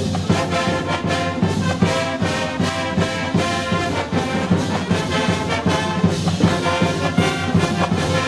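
Instrumental theme music with brass over a steady rhythmic beat.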